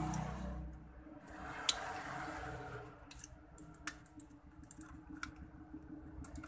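Small plastic clicks and taps from a computer mouse being handled and fitted back together. A rustling scrape comes first, then one sharp click a little under two seconds in, then scattered, irregular clicks.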